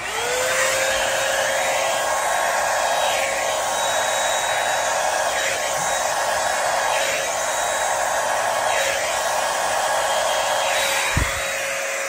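Handheld hair dryer with a flat-face nozzle attachment blowing air: the motor spins up at the start with a rising whine, then runs steadily, a constant whine over rushing air that wavers every couple of seconds as the dryer is moved.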